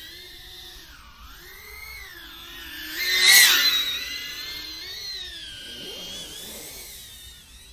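FPV quadcopter's brushless motors and propellers whining, their pitch rising and falling with the throttle, with a loud throttle-up surge about three seconds in.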